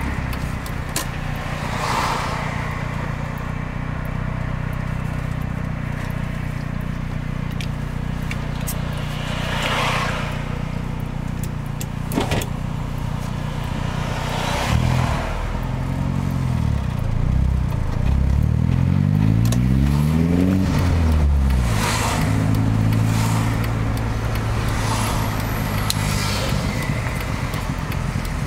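Car engine and road noise heard from inside the cabin while driving. The engine's pitch is steady at first, then rises and falls several times past the middle, with short whooshes of passing traffic now and then.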